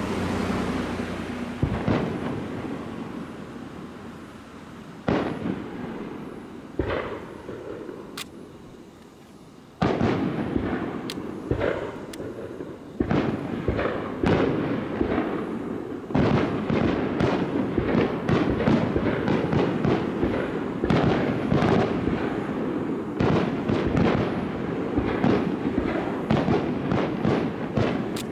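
Aerial fireworks bursting: scattered booms with rolling echoes at first, then from about ten seconds in a rapid barrage of bangs that grows denser toward the end.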